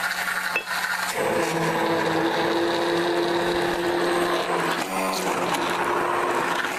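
Handheld stick blender running in a bowl of boiled potatoes and milk, mashing them to a purée: a steady motor whine that settles into its working pitch about a second in and wavers briefly near the end.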